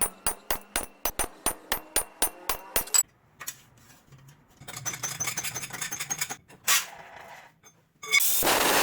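Hammer striking metal in a steady rhythm, about four ringing blows a second for roughly three seconds, then quieter scraping and tapping with one sharp knock. Near the end a loud steady rushing noise starts.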